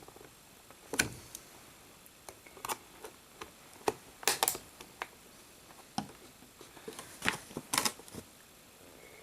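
Scissors cutting plastic cable ties on a toy's packaging: a series of irregular sharp clicks and snips, with a cluster in the middle and another near the end.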